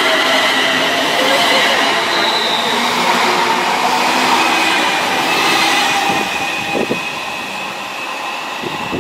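London Northwestern Railway Class 350 electric multiple unit running past the platform: steady high electric whine over wheel and rail noise, easing off about seven seconds in as the last coach clears.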